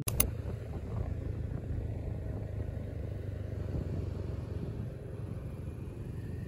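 A motorbike ride: a steady low rumble of wind rushing over the microphone and the bike's engine running.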